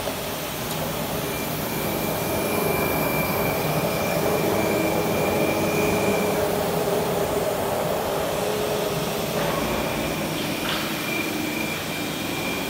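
Straight knife grinder running, its motor-driven grinding wheel grinding along a long veneer-peeling knife blade as a steady mechanical whir. A thin high whine sounds through the first half, stops, and comes back near the end.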